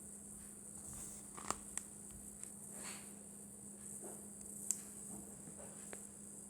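Faint handling of paper, with a few sharp little clicks and soft rustles, over a steady high-pitched whine and a low hum.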